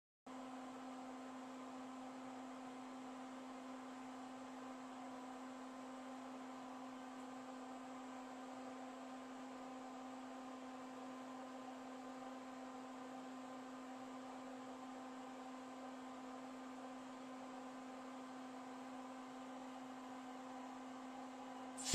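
Steady electrical hum, one low tone with its overtones. Right at the very end a sudden loud rush of noise breaks in as the overcharged lithium-ion pouch cell vents and bursts into flame.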